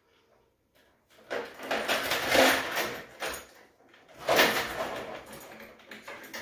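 Steel trap chain and swivel rattling and clinking as they are handled and joined, in two bursts: about a second in and again about four seconds in.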